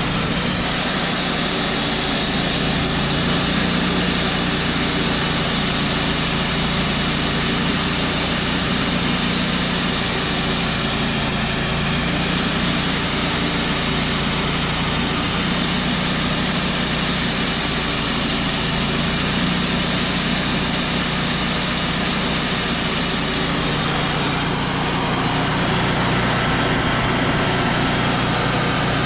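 Wood-Mizer LT35 band sawmill running steadily, its engine holding an even pitch.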